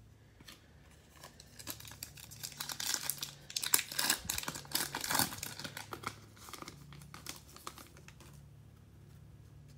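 Foil wrapper of a trading-card pack being torn open and crinkled by hand: a dense run of small crackles, loudest a few seconds in, thinning out toward the end.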